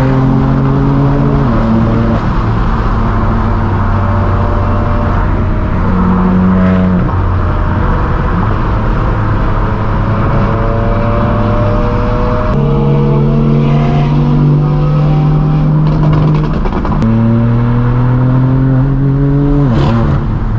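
Straight-piped BMW M4 F82's twin-turbo inline-six exhaust running loud under way. Its drone climbs slowly in pitch and changes abruptly several times.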